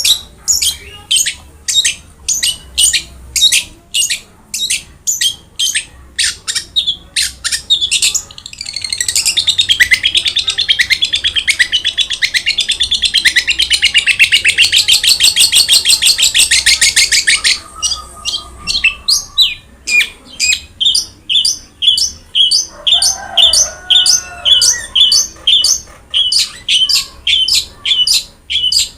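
Long-tailed shrike (cendet) singing: sharp, high calls repeated two to three times a second, broken about nine seconds in by a long fast rattling trill that lasts some eight seconds before the repeated calls resume.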